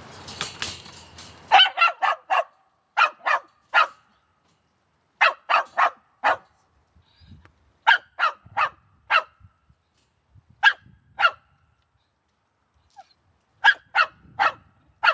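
Dog barking in its crate in short bursts of two to five sharp barks, with pauses of a second or more between bursts. A brief rustling clatter comes before the first barks.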